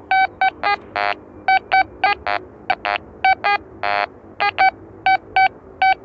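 Metal detector beeping as its coil is swept over a target: a quick run of short, higher-pitched beeps broken by a few longer, lower tones. The detectorist reads the mixed tone as something ferrous, that is, iron.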